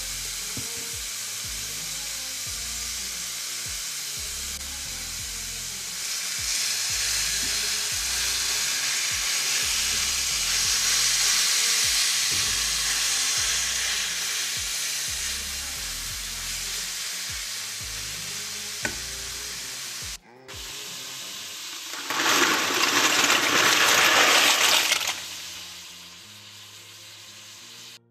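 Ground beef sizzling and frying in a frying pan while it is stirred and broken up with a utensil. The sizzle swells about six seconds in, and after a short break there is a louder burst of sizzling for about three seconds near the end.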